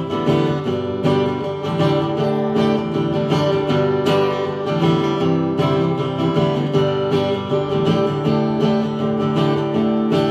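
Acoustic guitar strumming chords in a steady rhythm, an instrumental stretch of a country-style song with no singing.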